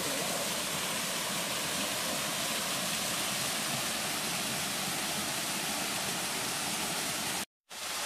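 Small waterfall pouring into a rock pool: a steady rush of falling water that breaks off for a moment near the end.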